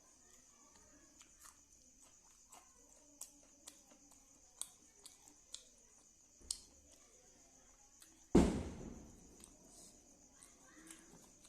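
Close-miked eating sounds: scattered sharp wet clicks and smacks of chewing. About eight seconds in comes one louder thump that dies away over about a second. A faint steady high whine runs underneath.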